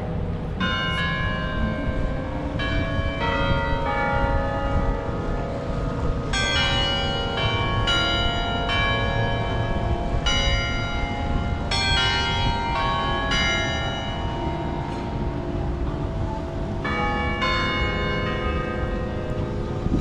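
Bells of the 9/11 Memorial bell tower ringing a run of struck notes at different pitches, each ringing on into the next, heaviest through the middle of the stretch.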